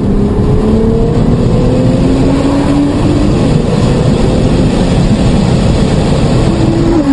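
Car engine under hard acceleration, its pitch climbing steadily over the first few seconds, with loud road and wind noise around it.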